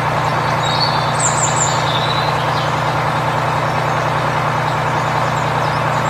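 Steady, loud vehicle-engine running sound like a truck, starting and stopping abruptly. A couple of faint high chirps come about a second in.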